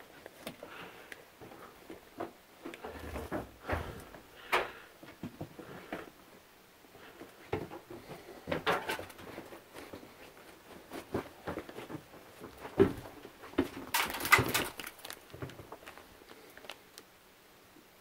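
Irregular knocks, scuffs and crunches of people moving about on the rocky floor of a mine tunnel, with a louder rattling clatter about 14 seconds in.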